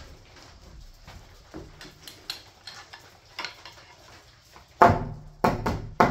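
Hammer blows on a nail going into a wooden framing board: four sharp strikes in quick succession near the end, after a few seconds of faint knocks and rustling as the board is handled.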